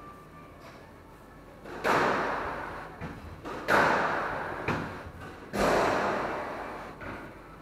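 Squash rally: three hard shots about two seconds apart, each a loud smack of racket and ball against the court wall that rings on around the court, with a lighter knock between the second and third.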